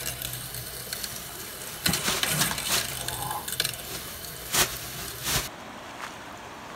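Camper kitchen faucet running pink RV antifreeze into a stainless steel sink as the winterizer is flushed out of the water lines, with several sharp clinks and clatters over the running water. About five seconds in, this cuts to a quieter steady hiss.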